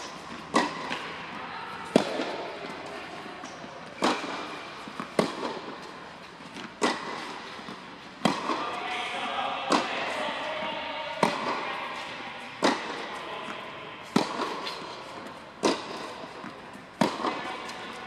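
Tennis balls struck by racquets and bouncing on a hard court during a baseline rally: a sharp pop about every second and a half, each ringing on briefly in the echo of a large indoor hall.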